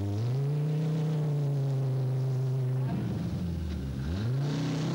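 Audi Quattro A2's turbocharged five-cylinder engine revved hard as the car, running without one front wheel after a collapsed front strut, struggles for grip. The revs climb and hold for a couple of seconds, drop about three seconds in, then sweep down and climb again near the end.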